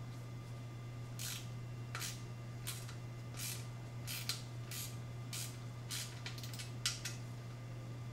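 Socket ratchet clicking in short strokes, roughly one or two a second, as the small 8 mm bolts of a motorcycle heat-shield bracket are loosened, over a steady low hum.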